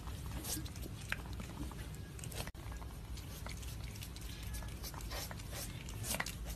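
A pet chewing: irregular crunching clicks over a steady low rumble, broken by a brief gap about two and a half seconds in.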